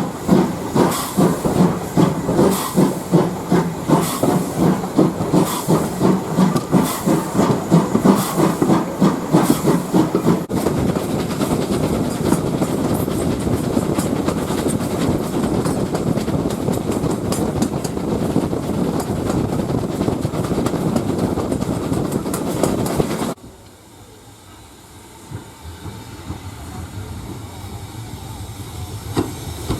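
Steam locomotive working hard with a regular beat of exhaust chuffs, about two a second, over hiss. It gives way abruptly to the steady rumble and clatter of a train running past. Near the end the sound drops suddenly to a much quieter rumble, which slowly grows again.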